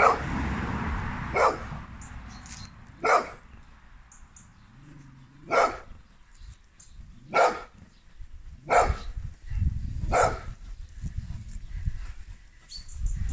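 A dog barking: about seven short single barks spaced a second or two apart.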